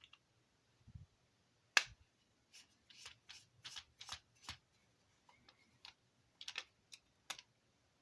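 Small screwdriver clicking and scraping against a tiny screw in a plastic hotspot casing as the screw is worked loose: one sharp click about two seconds in, then runs of quick, light clicks and scrapes.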